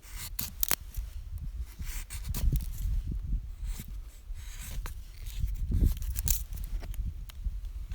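Irregular rustling, scraping and small clicks of things being handled, over a low rumble.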